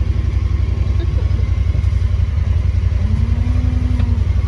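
Vehicle engine running steadily at low speed, heard from inside the cab as a loud, pulsing low rumble.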